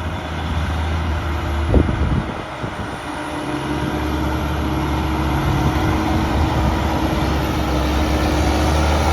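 Diesel engines of heavy farm machinery harvesting grass silage run steadily and grow slowly louder, with a sharp knock about 2 seconds in.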